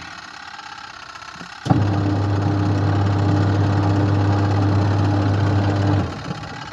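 Twin-tub washing machine motor switched on, running with a steady electric hum for about four seconds, then cut off.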